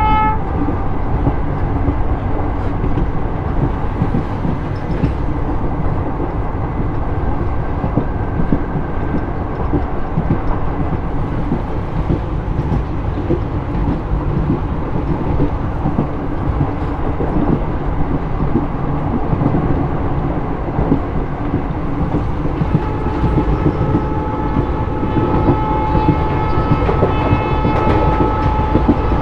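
Diesel-hauled express passenger train running, heard from aboard: a steady rumble with the clickety-clack of wheels over rail joints. A horn blast ends just after the start, and about three-quarters of the way through the locomotive horn sounds again in one long steady blast lasting about five seconds.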